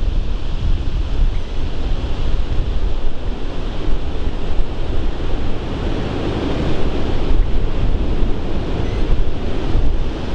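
Strong gusty wind buffeting the microphone over the steady low roar of a violent tornado.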